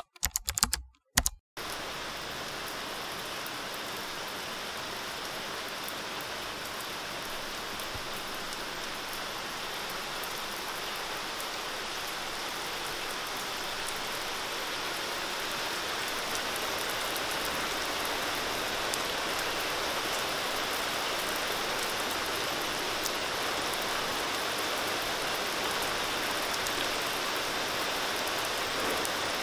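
Steady rain falling on an outdoor deck and trees, a dense even hiss that grows gradually a little louder. A couple of brief noises come right at the start before the rain settles in.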